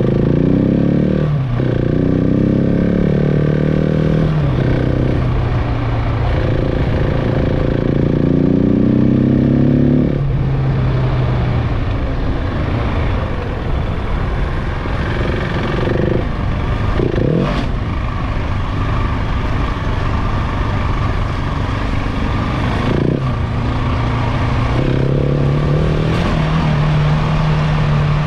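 KTM 690 Enduro's single-cylinder engine on the move off-road, its note rising and falling with the throttle and dropping sharply at gear changes. The engine sound thins into rough rushing and clattering noise through the middle stretch, then comes back steady near the end.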